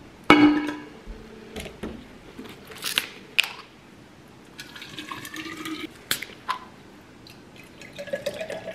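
Bottled water poured from plastic water bottles into a reusable water bottle, the pitch of the pour climbing as the bottle fills. A sharp knock near the start as the bottle is set on the counter, and scattered clicks of the plastic bottles and caps.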